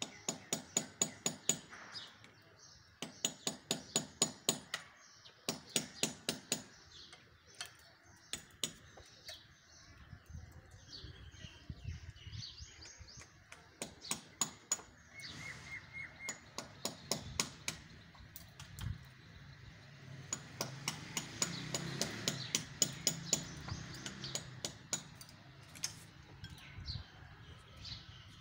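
Hand hammer striking a masonry wall in quick runs of blows, about five a second, each run lasting one to two seconds with short pauses between.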